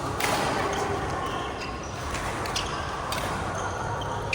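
Badminton rally: sharp racket hits on the shuttlecock roughly once a second, with short shoe squeaks on the court floor over a steady background of hall noise.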